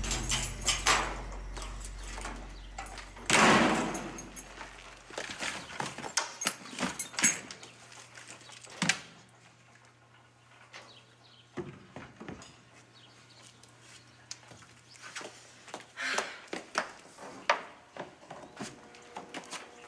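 A door opens about three seconds in, the loudest sound here. It is followed by scattered light knocks, clicks and footsteps as someone moves around a room handling objects. A music cue fades out in the first few seconds.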